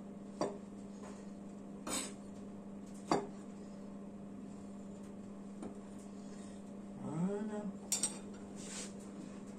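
Knife and metal spoon tapping and scraping on a plastic cutting board while diced mango is cut and gathered up: a handful of separate sharp knocks, over a steady low hum.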